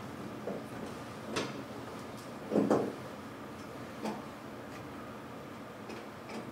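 A few clicks and dull knocks from equipment being handled at a lectern, with the loudest knock about two and a half seconds in, over a steady background hum.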